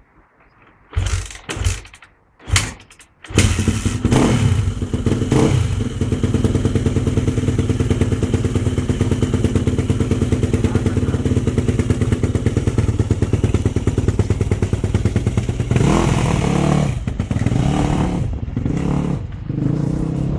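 Yamaha 250 four-stroke dirt bike engine with an Akrapovic exhaust being kick-started: three short bursts as it is kicked over, then it catches about three seconds in and idles steadily. Around sixteen seconds in it is revved briefly before settling back to idle.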